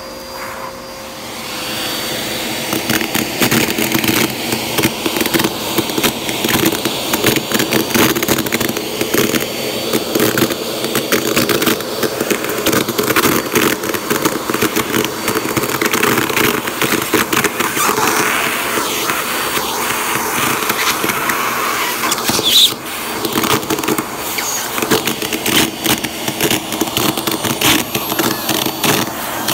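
Vacuum cleaner running with its hose wand sucking up scraps of tissue paper off carpet, the paper crackling and rattling as it is drawn in. The crackling gets louder about two seconds in and goes on densely.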